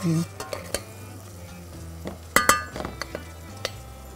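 A spoon clinking and scraping against a stainless-steel saucepan while chopped onion and garlic are stirred in hot olive oil, with a faint sizzle underneath. There are a few sharp clinks, the loudest pair about two and a half seconds in.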